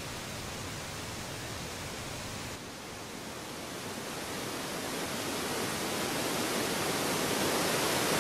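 Steady rush of flowing river water, an even hiss with no distinct events. It shifts slightly about two and a half seconds in and then grows gradually louder.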